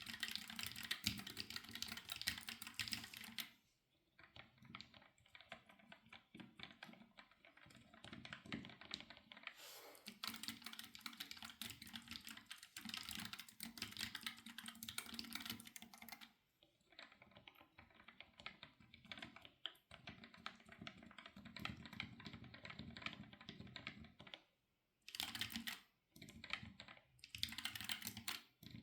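Typing on a ZSA Voyager split keyboard with low-profile Kailh Choc switches and keycaps fitted: rapid keystroke clicks in stretches of a few seconds with short pauses between, the left half's switches unlubricated and the right half's lubricated. Some stretches sound brighter and clickier than others.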